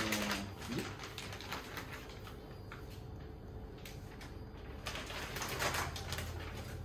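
Plastic wrapping crinkling and rustling as a bagged gaming-chair backrest is lifted from its cardboard box and carried, in uneven bursts: loudest at the start and again about five to six seconds in.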